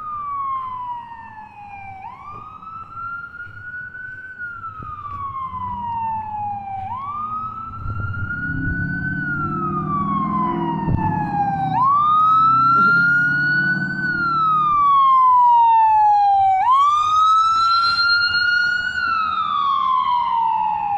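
An emergency vehicle siren wailing, its pitch rising and falling in a slow cycle of about five seconds and growing louder as it approaches. A vehicle's low engine rumble passes through the middle.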